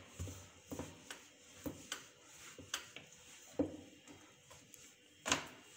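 Rolling pin rolling out a stuffed paratha on a board: soft, irregular knocks and bumps every half second to a second, with a louder knock near the end.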